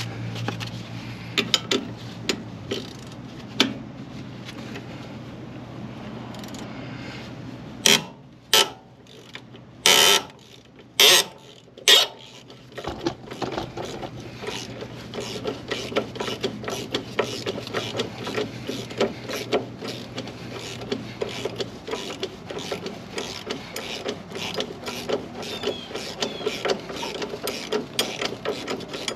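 Tools working on the truck's front-suspension hardware: five short, loud bursts of an impact wrench between about 8 and 12 seconds in, then a ratchet wrench clicking quickly and steadily.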